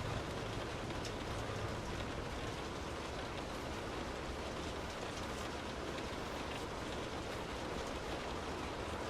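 Steady rain heard from indoors, a continuous even hiss with faint scattered ticks of single drops.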